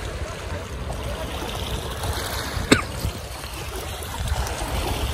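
Wind buffeting the microphone over small waves washing on a pebble shore. About two and a half seconds in there is one short, sharp squeak that falls in pitch.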